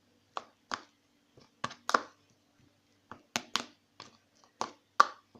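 Sticky homemade slime being kneaded and squeezed by hand: about a dozen sharp, irregular clicks and pops as it pulls and snaps apart.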